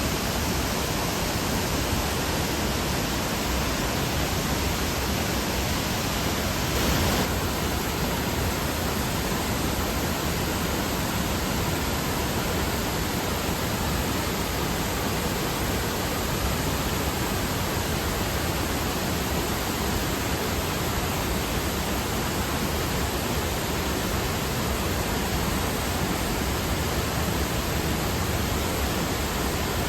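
Steady rushing of a waterfall's falling water, briefly louder about seven seconds in.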